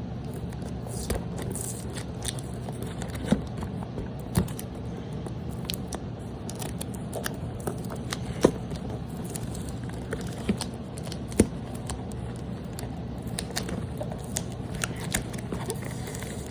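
Scattered small clicks, light knocks and rustles of a toy car's box and packaging being handled, with a few sharper taps, over a steady low hum.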